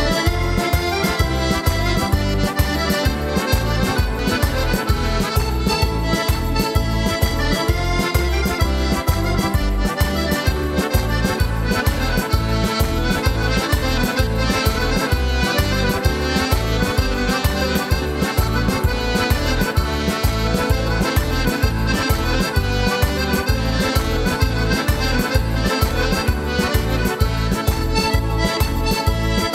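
Two button accordions playing a tarantella over a steady, evenly pulsing bass beat.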